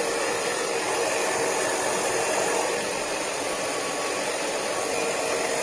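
Handheld hair dryer running steadily, blowing air onto hair: an even, unbroken whoosh with a faint steady hum in it.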